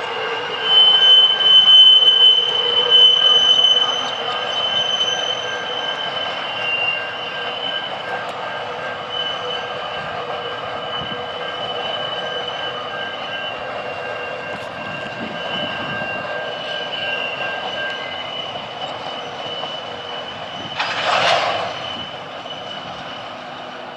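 Freight train's empty container flat wagons rolling past, their steel wheels squealing with steady high-pitched tones over the running noise. The squeal is loudest in the first few seconds. A brief rush of noise comes about three seconds before the end.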